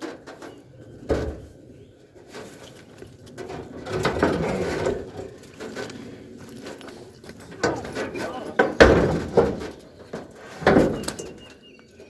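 Sharp metal knocks and clunks from work on a 1966 Chevrolet C10's hood hinges, a few separate hits with the loudest two near the end.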